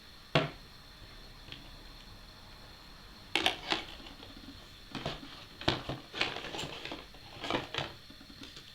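Handling noise of hard objects: a sharp knock about half a second in, then several quick clusters of clicks and knocks from about three seconds on, over a faint steady high whine.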